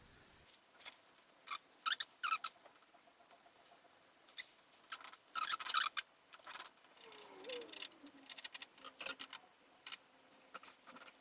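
Irregular short scrapes and taps of a small hand-held applicator working wood filler into a gap in plywood, with a cluster of longer scrapes about halfway through.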